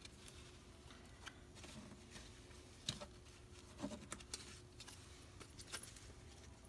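Faint scattered clicks and rustles of a deck of tarot cards being picked up and handled on a velvet cloth, over quiet room tone.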